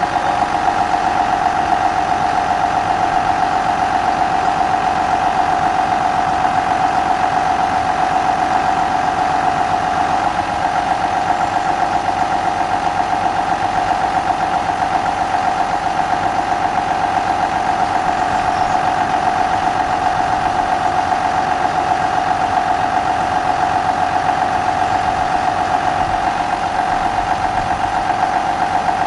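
Tractor diesel engine running steadily with a constant droning tone, while it powers the hydraulics of a high-tip grain hopper raised to unload grain sideways.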